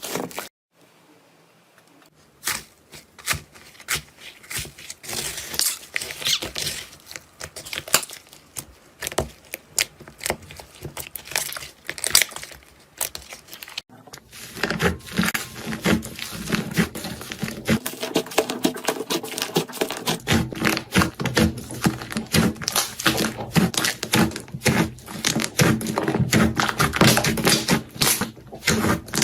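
Slime being squeezed, poked and stretched by hand, giving rapid crackling and clicking pops. About halfway through the clip changes and the popping gets fuller and denser.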